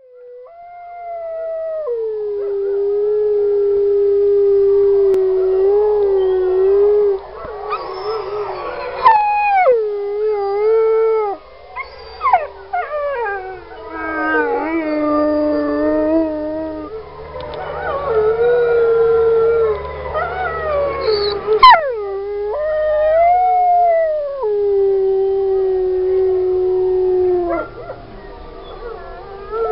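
Wolves howling: a long howl that slides down and holds, then several howls overlapping in a chorus with rising and falling glides, and near the end a single long howl that drops in pitch and holds steady.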